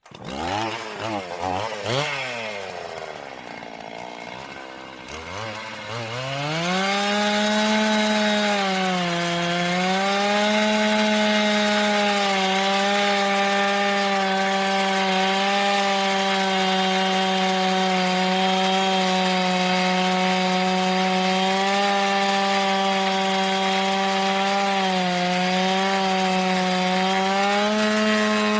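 Gasoline chainsaw starting abruptly and revving up and down in quick blips for the first six seconds, then held at a steady high speed, its pitch sagging briefly a few times as the chain cuts into wood.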